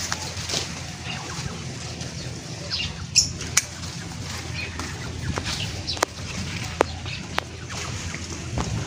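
Leaves and vines of a hyacinth bean plant rustling as they are pulled and stripped off a trellis by hand, with several sharp clicks scattered through.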